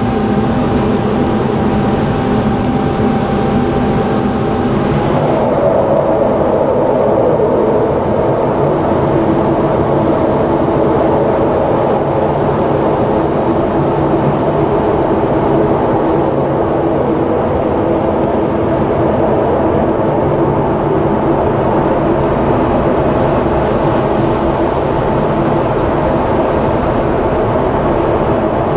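F-16 fighter jet's engine and airflow noise heard inside the cockpit during display manoeuvres: a loud, steady rush. A high steady whine cuts out about five seconds in, and the middle of the sound then grows stronger.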